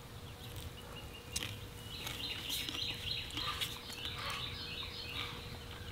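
Small birds chirping and twittering, with a faint steady hum under them.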